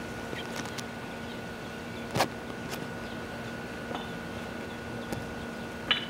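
Quiet outdoor ambience: steady hiss with a faint constant hum, a few small clicks and one sharp click about two seconds in, and a single brief high bird chirp just before the end.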